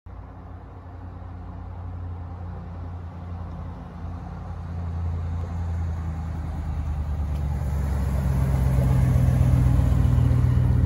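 2018 Ram 1500 pickup's engine running as the truck drives up and pulls in close, a low rumble that grows steadily louder and is loudest near the end.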